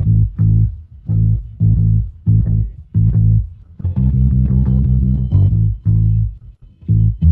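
Isolated bass guitar track: a bass line of short plucked notes in rhythmic phrases, broken by brief gaps.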